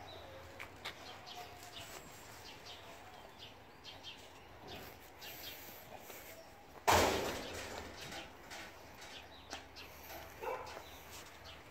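A young Doberman crunching dry kibble from a stainless steel bowl: a steady run of small crisp crunches and clicks. About seven seconds in, a sudden louder noise that fades over about a second.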